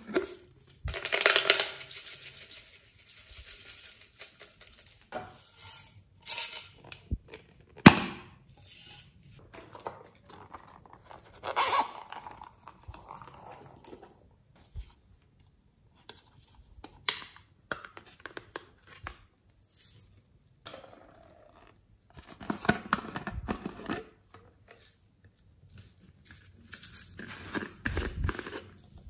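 Slime and its plastic containers being handled: caps and lids opened and slime pulled out and poured, with sticky, tearing crackles in separate bursts of a second or two. One sharp click comes about eight seconds in.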